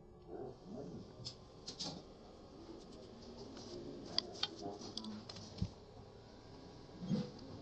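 Scattered light clicks and taps of small parts of a mini sewing machine being handled and fitted, with one low thump about five and a half seconds in.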